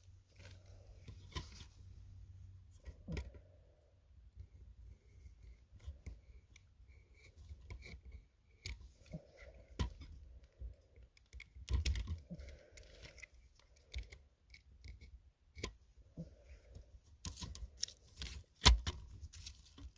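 Irregular sharp clicks and snaps with muffled handling between them, from small parts being worked by hand; the clicks come thickest near the end.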